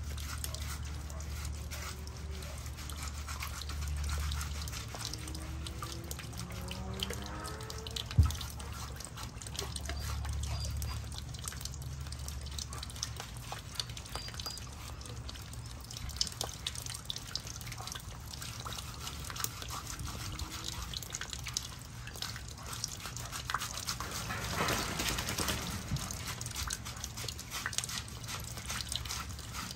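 Water dripping and splashing on a wet kennel floor as a soapy dog is scrubbed by hand, with many small drip clicks over a low steady hum. A short rising whine comes about seven seconds in and a single sharp knock just after; a louder rush of water or spray comes a few seconds before the end.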